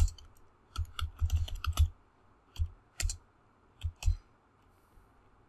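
Computer keyboard being typed on: a quick run of keystrokes in the first two seconds, then a few separate keystrokes spaced out, and a pause near the end.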